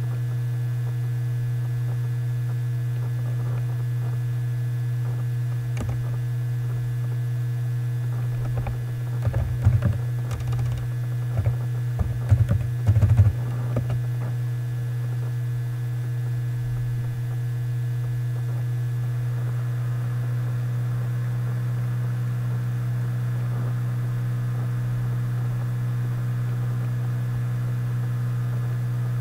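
Steady low electrical hum throughout, with a few seconds of computer keyboard typing and clicks about a third of the way in.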